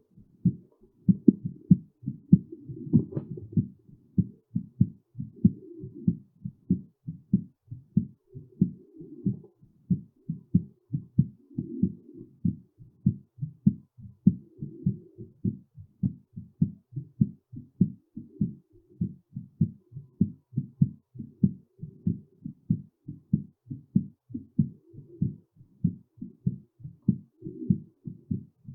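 Human heartbeat with regular, fairly quick beats, and a soft rushing sound coming back every few seconds between them.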